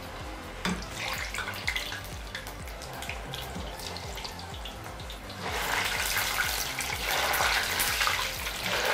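Cassava pieces deep-frying in a pot of hot oil: a steady crackling sizzle with fine pops that grows clearly louder about halfway through.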